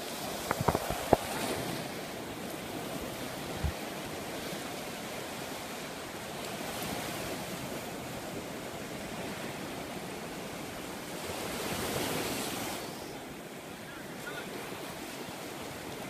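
Ocean surf washing onto a beach, a steady rushing noise, with a quick cluster of sharp clicks about a second in.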